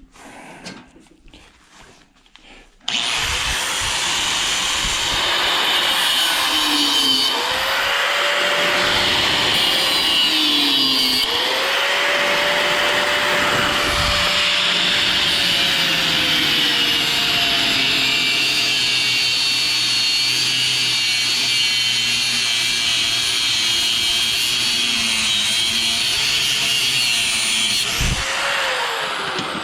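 Angle grinder cutting through the steel shaft of a washing machine motor. It starts about three seconds in and runs steadily with a high whine, its pitch dipping twice as the wheel bogs under load, then winds down near the end.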